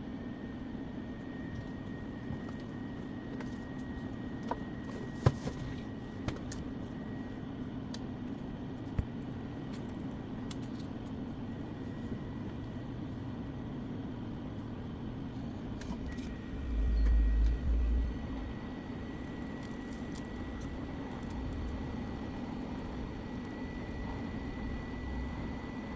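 Steady mechanical hum with a faint high whine, a few small clicks and one low thump about two-thirds of the way through.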